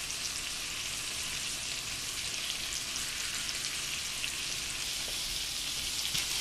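Salmon fillet sizzling in butter in a frying pan: a steady high hiss flecked with small crackles and pops, a little louder near the end.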